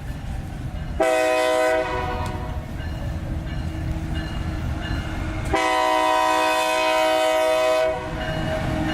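Diesel locomotive's multi-tone air horn sounding a short blast about a second in, then a long blast of about two and a half seconds, over the low rumble of the passing train.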